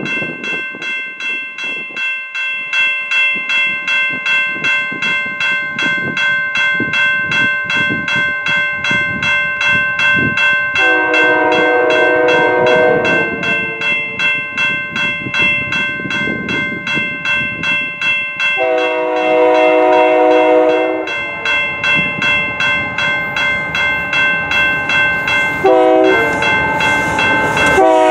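Diesel freight locomotive's multi-chime air horn sounding the grade-crossing signal (long, long, short, then a long one starting near the end), marking the train's approach to a road crossing. A bell rings in a steady rhythm underneath.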